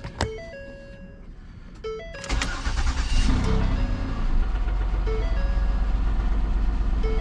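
A 2010 Ford Escape's engine starting about two seconds in and settling into a steady, deep idle through its freshly shortened exhaust. A repeating dashboard warning chime beeps throughout, with a couple of clicks before the start.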